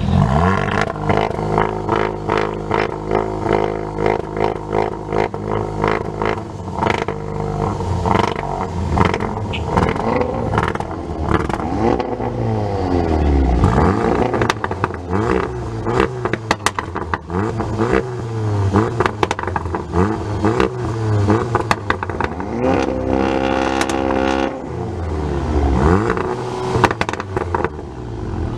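Seat Leon Cupra 300 and Remus-exhausted Audi S3 8V, both turbocharged 2.0-litre four-cylinders, revved hard at standstill again and again, the engine pitch climbing and dropping with each blip. Rapid pops and crackles from the exhausts come between the revs.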